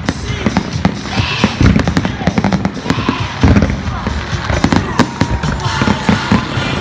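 Fireworks going off in rapid succession: deep booms of shells bursting mixed with dense sharp crackling, with music playing underneath.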